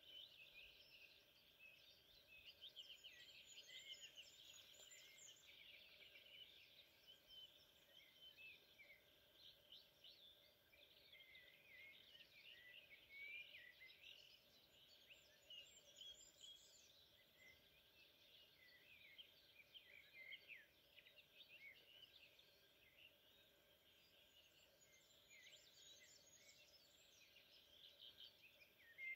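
Faint chorus of several songbirds singing in the forest, many short overlapping chirps and trills throughout, over a quiet steady outdoor hush.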